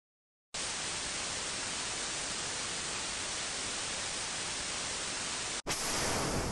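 Steady hissing static noise, like an untuned TV, starting about half a second in. Near the end it cuts off abruptly and a brighter burst of noise takes over and starts to die away.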